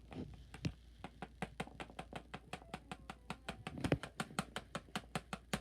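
Rapid, very even clicking, about six clicks a second, with a heavier knock about four seconds in.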